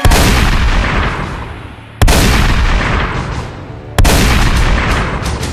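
Three loud gunshots about two seconds apart, each sudden and followed by a long, slowly fading boom.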